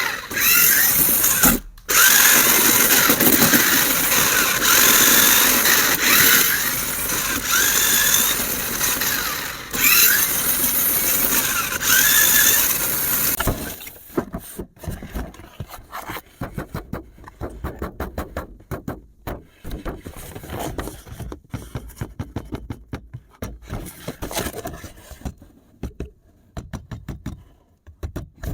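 A small electric toy motor whirring loudly, its whine rising and falling, for about 13 seconds; then it stops and rapid light clicks and rattles follow.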